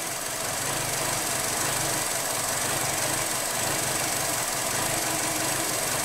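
2012 Chevy Cruze 1.4-litre turbo four-cylinder idling steadily while running very lean, with a lean fault code (P0171) and a faulty MAP sensor reading.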